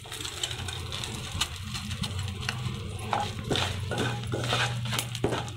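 Wooden spatula stirring and scraping dried red chillies frying in a little oil in a nonstick pan, with scattered light scrapes and taps over a steady low hum.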